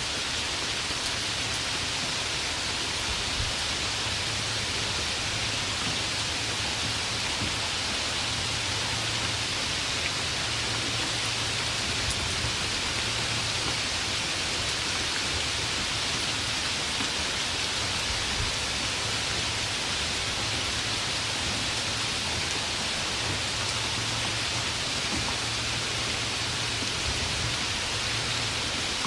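Steady rain falling, an even hiss with no thunder. A faint low hum comes and goes beneath it.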